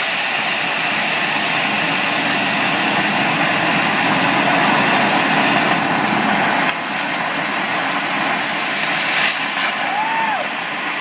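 Indoor theatrical pyrotechnic fountains spraying sparks with a loud, steady hiss. The hiss drops about two-thirds of the way through as some fountains burn out, and a single sharp crack follows a couple of seconds later.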